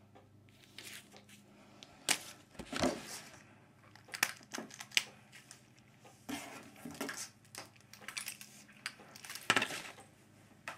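Cardboard box and packing material of a new BMX bike being handled: irregular knocks, scrapes and crinkles, the sharpest about two seconds in and again near the end.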